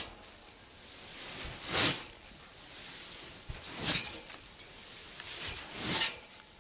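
Sand hissing and spraying off a trampoline mat as a barefoot jumper lands in it, three times about two seconds apart, with softer rustling and faint low thuds in between.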